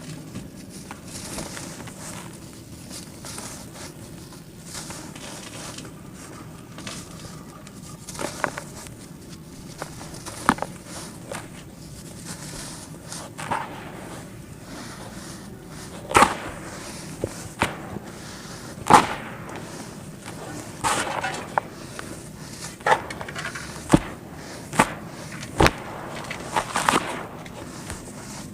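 Lumps of red dirt being crumbled: a soft gritty rustle broken by sharp cracks and snaps, few at first and more frequent in the second half.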